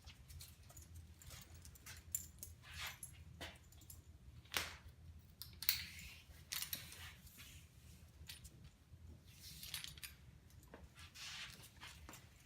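Faint metal jingling and clinking at irregular intervals from a dog's collar and leash hardware as the dog moves about, the sharpest clinks about four and a half and six seconds in.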